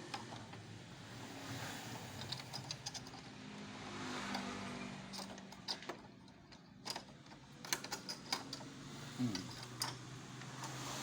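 Scattered clicks and knocks of copier document-feeder parts being handled and fitted back together, over the steady hum of a motor vehicle engine running in the background, whose pitch dips briefly about nine seconds in.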